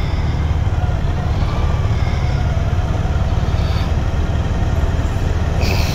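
Motorcycle riding slowly, heard from a camera mounted on the bike: a steady low rumble of engine and wind, with a brief hiss near the end.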